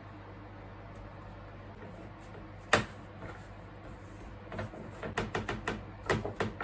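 Things being handled: one sharp knock, then a quick, uneven run of light clicks and taps.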